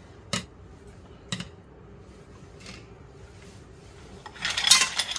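Chopsticks clicking against a ceramic bowl, a few sharp knocks about a second apart, as a seasoning mixture is scraped out of it into a stainless frying pan of braised seafood. Near the end comes a louder rush of about a second as the mixture slides and scrapes out into the pan.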